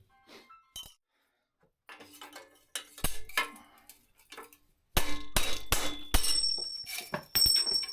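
Small metal bicycle parts being handled: a series of metallic clinks and knocks, busiest in the second half, with a few sharp strikes that ring briefly.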